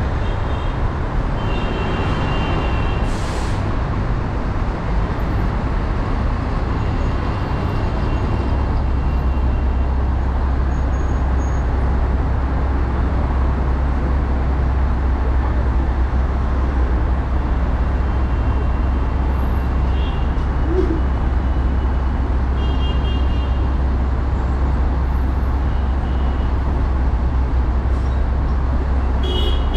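Slow, jammed city traffic beside a bus: a steady low rumble of engines and road noise, deepening about eight seconds in. Several brief high-pitched tones sound at intervals, with a short hiss about three seconds in.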